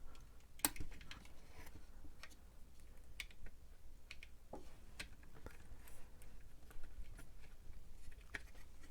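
Faint, scattered clicks and taps from working on the opened Tandy Deluxe Joystick by hand, as a loose internal spring is hooked back into place.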